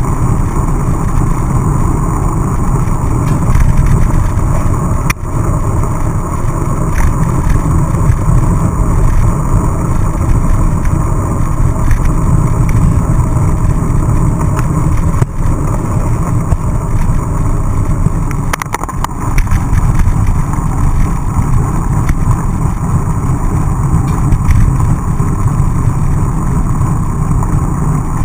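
Wind rushing over an action camera's microphone and mountain-bike tyres rumbling on a wet road as the bike rides along, with a few knocks from bumps.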